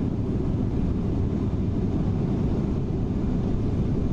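Steady low drone of airliner cabin noise in flight, with no breaks or separate events.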